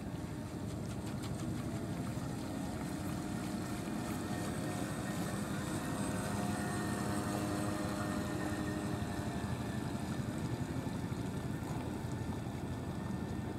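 Brushless electric motor of a 1 m RC model cruiser running, a faint whine with the wash of its hull through the water, swelling as the boat passes close about halfway through and fading as it heads away, over a steady low rushing noise.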